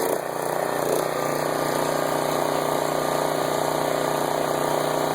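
Subaru gas engine driving a pressure washer pump, running steadily after a carburettor rebuild. The engine note shifts slightly just after the start, then holds steady without stalling.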